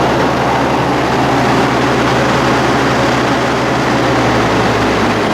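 Hydro-excavator truck's diesel engine running steadily at raised throttle to drive the vacuum system, a loud even drone with a strong rush of air over it.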